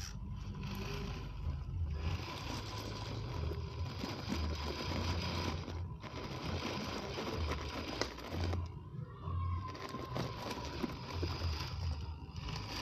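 1/10-scale RC rock crawler's small electric motor and gears whining as it climbs, with tyres crunching and scraping over loose gravel, dropping out briefly a couple of times.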